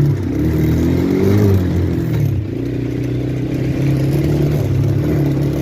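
Small ATV engine running, revving up about half a second in with its pitch rising for about a second, then dropping back and running steadily.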